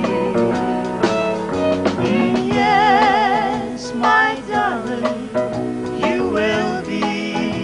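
Country-style ballad: singing with a wavering vibrato over acoustic guitar and backing band.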